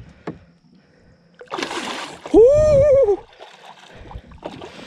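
A hooked bass splashing at the water's surface as it is brought to the boat, then a loud, high, wordless shout of excitement lasting under a second, with more splashing near the end.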